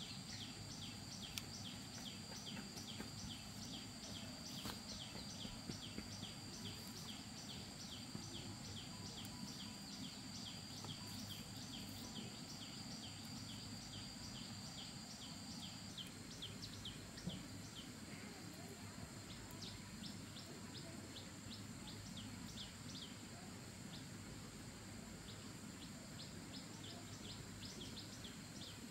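Outdoor ambience of rapid high chirping, several short chirps a second, thinning to scattered groups after about sixteen seconds, over a steady high whine and a low rumble. A few light knocks break through, one shortly after a second in and one after about seventeen seconds.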